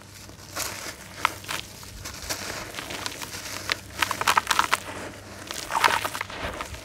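Dry, gritty red dirt slab crushed and crumbled between the fingers, crunching and crackling, with crumbs and dust sifting down into a basin. It comes in bursts, densest about four and six seconds in.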